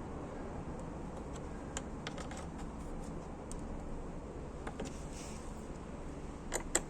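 Scattered light clicks and taps of hand tools and plastic trim being handled during car reassembly, with two sharper clicks close together near the end over a steady low background noise.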